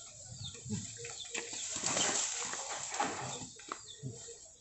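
Chickens clucking, with a burst of noise lasting about a second, about two seconds in.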